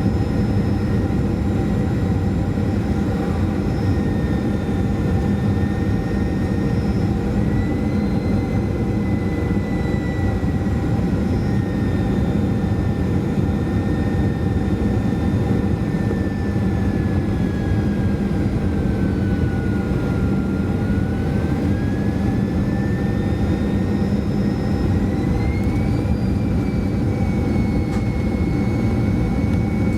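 Boeing 737-400's CFM56-3 turbofan engines heard from inside the cabin: a steady rumble and rush with a thin whine whose pitch sags gradually and then climbs again about 25 seconds in, as engine power is changed.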